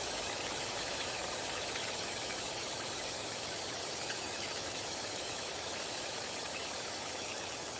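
A steady, even rushing hiss with no pitch or rhythm to it.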